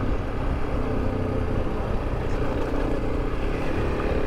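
Single-cylinder engine of a Honda CRF300 Rally motorcycle running steadily under way on a dirt track, with a dense low rumble beneath it.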